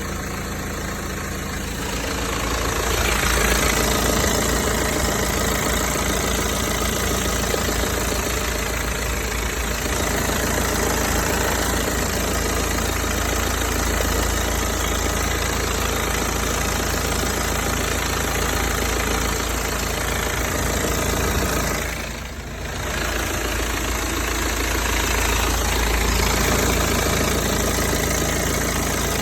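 BMW 320d diesel engine idling steadily, with an intermittent strange noise that the owner says comes and goes, warm or cold. The sound dips briefly about 22 seconds in.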